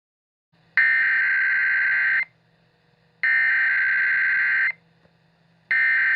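Emergency Alert System SAME header: three identical screeching data-tone bursts, each about a second and a half long with about a second between them. They signal the start of a new alert.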